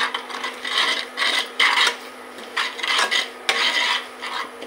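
Steel ladle scraping the bottom of a steel kadhai in repeated strokes, about two a second, while ground spices are stirred into fried onions. There is a single sharp metal clink about three and a half seconds in.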